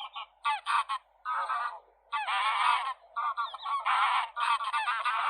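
Domestic fowl calling in a quick series of harsh, honking calls. Each call lasts under a second, with short gaps between them.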